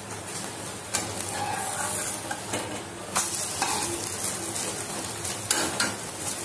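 Egg omelette frying and sizzling in oil in a nonstick pan, with a steady high hiss. A metal spatula scrapes and knocks against the pan a few times as it works the omelette.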